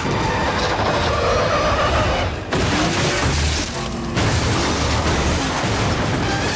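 Action-film car chase sound mix: engines running hard, then a car crashing and tumbling over with smashing metal and debris. Score music plays underneath.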